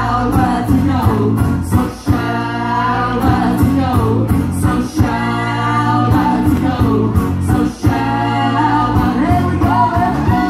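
Live folk-rock band: sung vocal phrases with held notes over strummed acoustic guitar, fiddle, bass and drums, with a steady beat.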